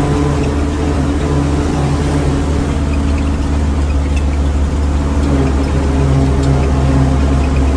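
Mitsubishi diesel bus engine running steadily under way, heard from inside the cabin as a constant low drone.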